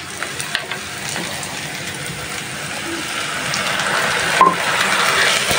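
Sliced onions and garlic frying in oil in a pan with ground spices added: a steady sizzle with spatula stirring, growing louder in the second half as the spices turn to a wet paste in the hot oil.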